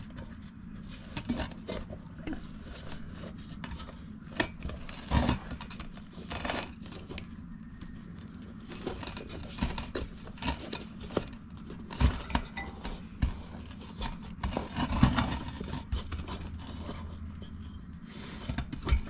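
Irregular metallic clinks, knocks and rubbing as a dirt bike wheel, its tire and tire tools are handled while an inner tube is worked into the tire.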